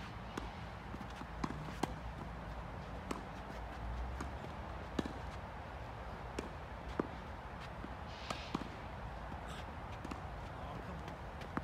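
Tennis rally: sharp pops of racket strikes and ball bounces, irregularly spaced about every second, over a steady outdoor hiss.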